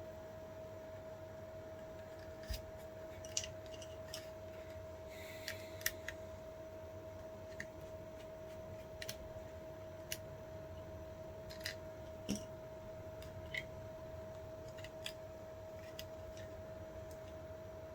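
Small irregular clicks and taps of tools and parts being handled while a Samsung electronic door lock is taken apart. A steady hum runs underneath.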